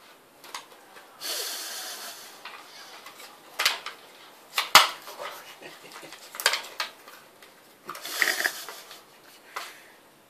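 Puppy eating from a plastic food bowl, the bowl knocking and scraping against the crate's wire floor: a few sharp clacks and two longer stretches of scraping as it chases the last bits of food.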